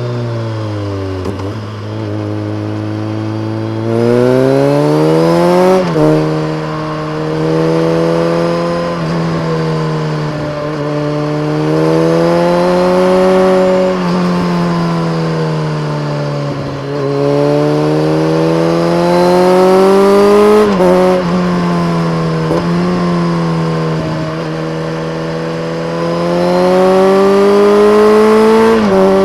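BMW K1300R inline-four engine through a full Akrapovic race exhaust with a dB killer, riding and changing speed. Its pitch drops off at first, then climbs and falls again and again with the throttle, with sudden short dips at gear changes about six seconds in and near the end.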